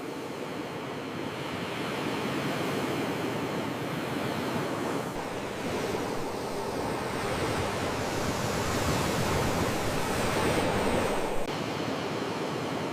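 Sea waves washing in, a steady rushing surf that swells and eases, loudest near the end. The sound changes abruptly twice, about five seconds in and again near the end, as if the recording were spliced.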